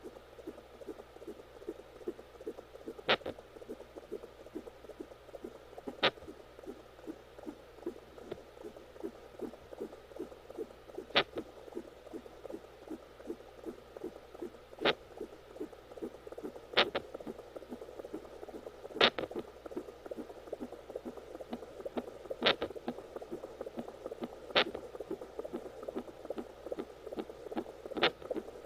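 Fetal hiccups over the unborn baby's heartbeat: a fast, steady pulsing of the heartbeat, with about nine sharp, loud clicks a few seconds apart, each one a hiccup.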